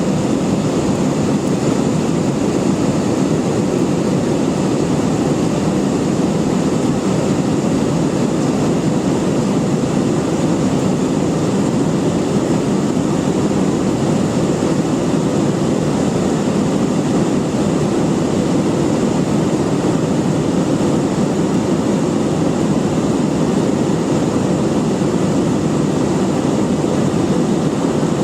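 Steady drone of an airliner's engines and rushing air heard inside the passenger cabin during the climb after takeoff.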